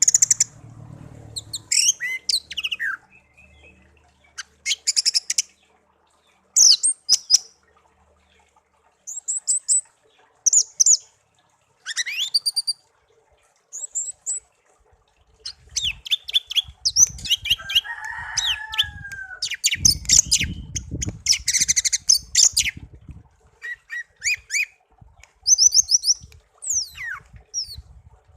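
A pet songbird singing in short bursts of rapid, high chirps and trills, separated by brief pauses. Partway through, a low rumbling noise runs under the song for a few seconds.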